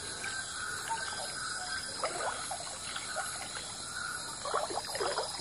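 Water sloshing and splashing around legs as people wade through a shallow river, in a few irregular bursts that come thickest near the end. A steady high chorus of insects such as crickets runs underneath.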